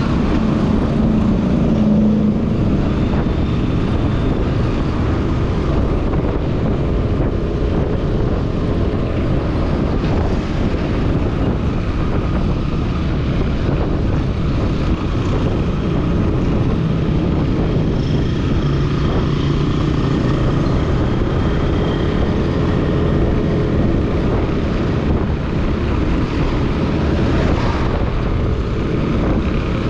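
Motorbike being ridden at a steady road speed: a continuous engine and road rumble with wind buffeting the microphone, with no breaks or sudden sounds.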